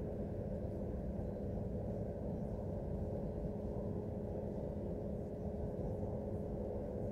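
Steady engine-like roar from industrial equipment at a metal-casting plant: a rumble with held humming tones over it that does not change. The uploader takes it for failing equipment.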